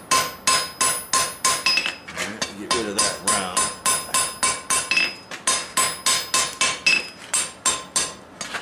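Hand hammer striking a red-hot steel bar on an anvil in steady blows, about three a second. Each blow leaves a short bright ring from the anvil. The smith is forging the hot steel point back to spread it wider.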